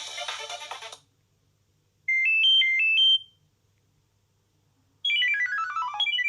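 Nokia 6230i ringtones playing one after another: a full polyphonic tune cuts off about a second in, a short beeping alert of a few stepped notes jumping up and down plays a second later, and near the end a new ringtone starts with quick repeated runs of falling notes.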